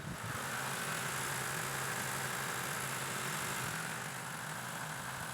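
BMW car engine idling steadily, with an even hum and hiss.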